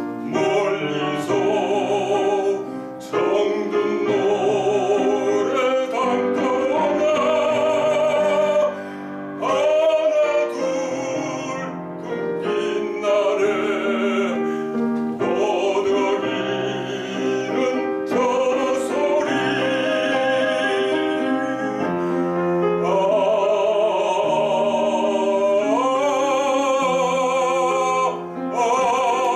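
Baritone singing a Korean art song in operatic style with wide vibrato, accompanied by piano. Near the end the voice climbs to a long held note.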